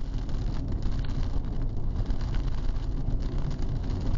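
Steady road and engine rumble inside a car driving through a storm, with wind noise and rain spattering on the windshield.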